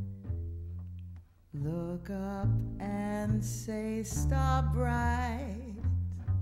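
Pizzicato double bass playing a jazz line, joined about a second and a half in by a wordless vocal line that glides and wavers over it until near the end.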